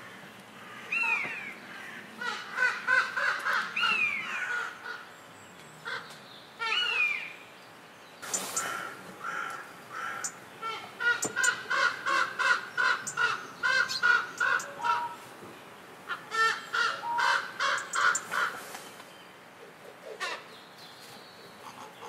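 Common raven calling in runs of quick, repeated croaking calls, with a few drawn-out falling calls in the first seven seconds.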